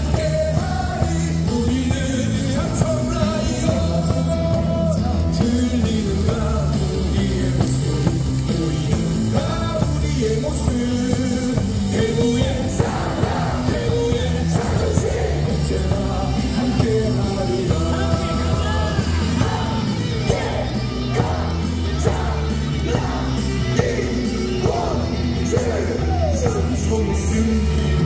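Loud cheer-song music with a steady beat over a stadium's loudspeakers, with a crowd of baseball fans singing and shouting along.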